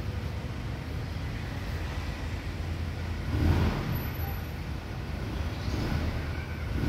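Steady low rumble of outdoor background noise, swelling once about three and a half seconds in.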